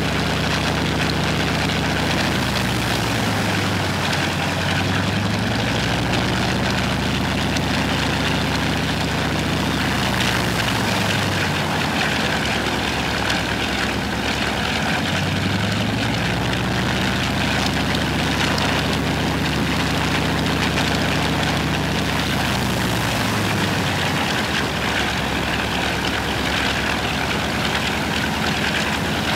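Ilyushin Il-14T's Shvetsov ASh-82T radial piston engine running steadily during a ground run-up, a heavy drone whose tone slowly wavers up and down.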